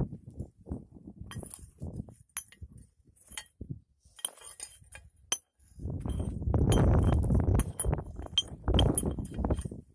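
A metal hand tool scraping and digging through ash, charcoal and sand, with many sharp clinks as it strikes charred pieces and metal. About six seconds in, the scraping gets louder and heavier.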